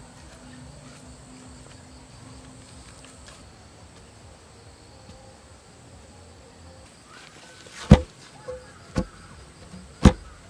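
Three heavy thuds about a second apart, the first the loudest, as a bamboo pole is rammed down into its hole in the soil. Before them, only a faint steady insect buzz.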